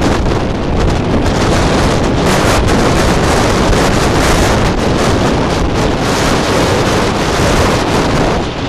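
Storm wind blowing hard across the microphone, with heavy surf breaking on rocks. Loud, dense, steady noise throughout.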